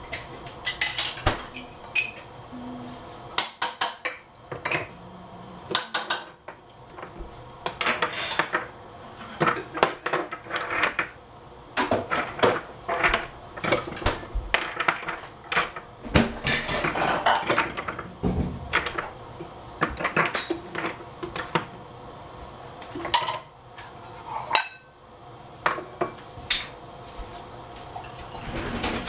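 Metal utensils clinking and scraping against pots and dishes: irregular knocks and clinks, with a few longer scrapes, as the fried rice is handled.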